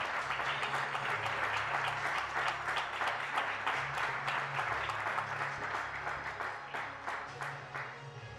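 An audience applauding with dense clapping that thins out and fades near the end.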